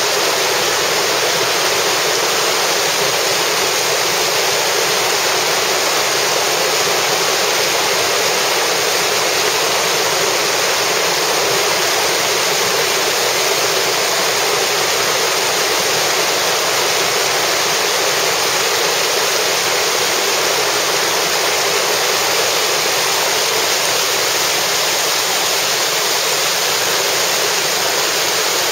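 Loud, steady rush of whitewater river rapids pouring over rocks.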